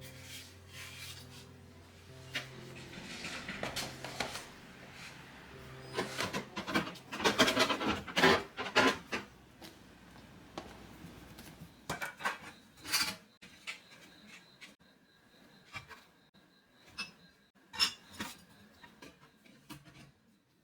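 Food containers and storage baskets being handled and set down while a refrigerator is sorted. Irregular knocks and clatter with rubbing and rustling, busiest in the middle, then a few separate taps.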